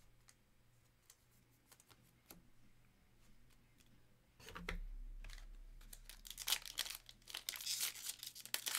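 A few faint taps of cards being set down, then from about halfway a foil trading-card pack wrapper crinkling as it is handled and torn open.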